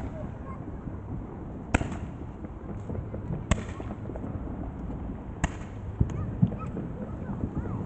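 Fireworks going off: a string of sharp bangs roughly every two seconds, with a cluster of smaller pops near the end, over a steady low background noise.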